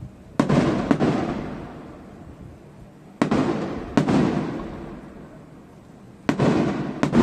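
Aerial firework shells bursting: six sharp bangs in three pairs, the pairs about three seconds apart. Each bang is followed by a long rolling rumble that slowly dies away.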